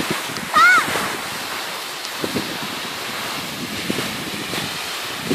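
Steady rushing noise of wind on the microphone on a ski slope. About half a second in comes a single short, high-pitched child's cry that rises and then falls.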